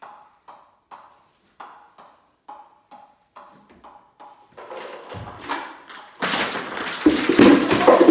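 A ping pong ball bounced steadily on a paddle, about two taps a second. About four and a half seconds in, the taps crowd together, and near the end a loud rattling clatter follows as a bucketful of ping pong balls comes down and bounces across the floor.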